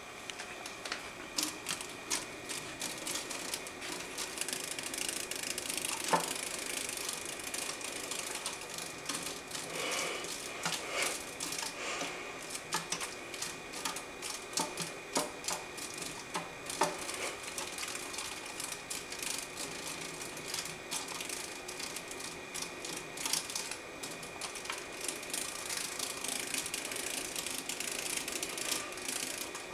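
A large moth fluttering inside a glass terrarium, its wings batting against the glass and screen lid in rapid, irregular tapping and rattling with a few louder knocks. A faint steady high whine runs underneath.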